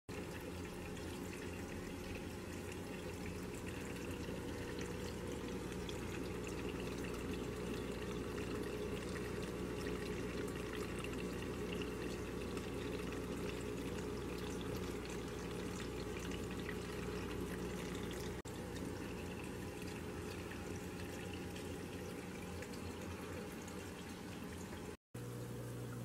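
Water trickling and splashing down an epoxy-sealed foam rock waterfall into an aquarium in a steady, even stream, with a steady low hum underneath. The sound cuts out for an instant near the end.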